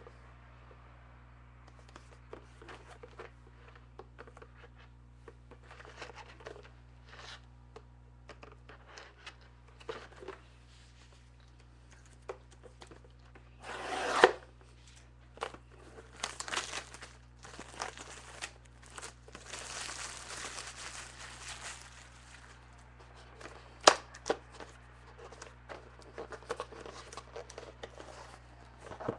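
A trading-card hobby box being unwrapped and opened: plastic shrink wrap tearing and crinkling and cardboard being handled, with scattered clicks and taps. The loudest moments are a burst of tearing about halfway through and a sharp tap near the end.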